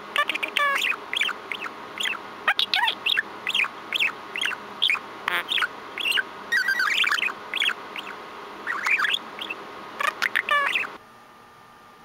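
Budgerigar chattering in a fast run of short warbling chirps and whistles, mixing in mimicked sounds, a farty noise and a phone ringtone. The chatter breaks off suddenly near the end.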